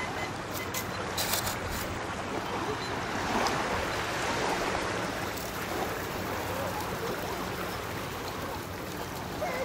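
Steady shoreline background noise of gently lapping water, with faint voices in it.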